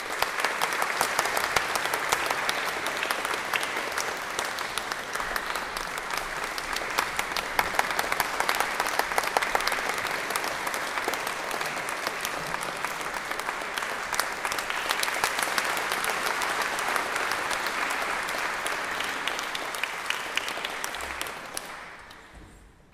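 Audience applauding with dense, steady clapping, dying away near the end.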